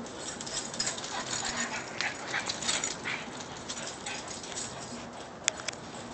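Dogs whimpering in short scattered bursts, with one short sharp sound about five and a half seconds in, the loudest moment.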